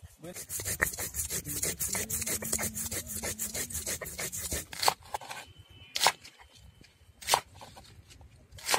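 Stone roller ground back and forth on a stone grinding slab (sil-nora), crushing spice paste with rapid gritty scraping strokes for about four and a half seconds. After that, a kitchen knife chops through water lily (shapla) stems on a wooden board: four separate sharp chops about a second apart.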